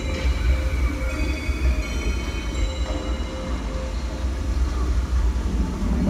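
Low, steady rumbling soundscape played through the arena's speakers by the drumline's electronics, with a few faint sustained high tones over it, leading into the opening of the show.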